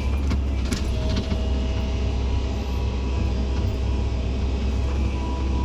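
Heavy diesel engine of earthmoving machinery running steadily with a deep rumble. A few sharp knocks come in the first second.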